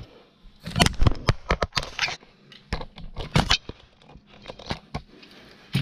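Tools, parts and a paper towel being handled on a workbench: a quick run of sharp clicks and knocks in the first few seconds, then sparser ones, with paper rustling and tearing.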